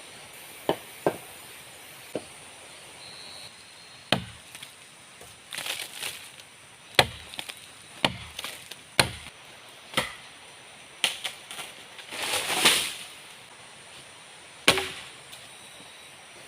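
Wood being chopped with a blade: a series of sharp strikes, a few light ones at first, then heavier blows about a second apart, with a longer, noisier crash about twelve seconds in.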